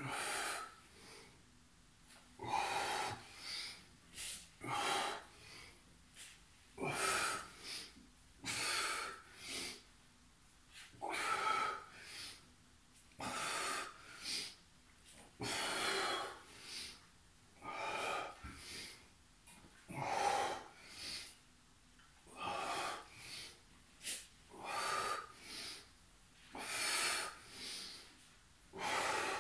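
A man's heavy breathing during a seated core exercise, with forceful breaths in and out through mouth and nose about every couple of seconds. The breathing is laboured from exertion.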